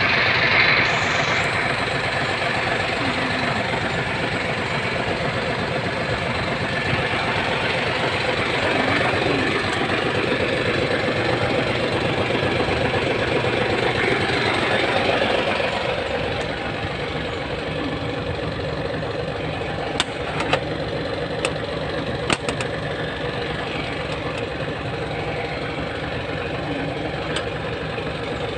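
Hino 700's E13C inline-six diesel engine idling steadily, dropping a little in loudness about halfway through. A few sharp clicks come in quick succession a little past the middle.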